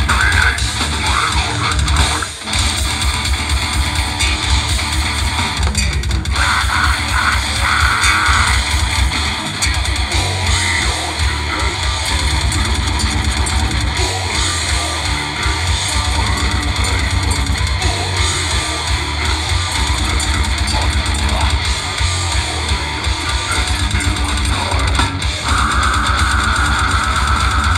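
Live extreme metal band playing loud, dense, distorted electric guitar, bass guitar and a drum kit, heard from the crowd, with a momentary break about two seconds in.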